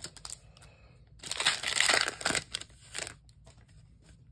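Plastic wrapper of an NBA Hoops trading card pack crinkling as it is torn open and pulled off the cards. There is one loud stretch of crinkling starting about a second in and lasting about a second and a half, then a few softer rustles.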